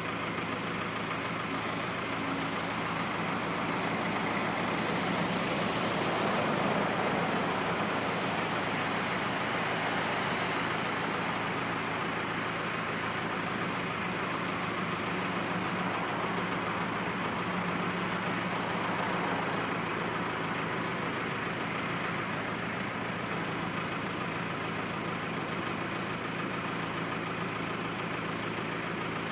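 Iveco four-cylinder diesel engine of a Dieci L3500 concrete mixer running steadily at idle, rising briefly in loudness about six seconds in before settling back.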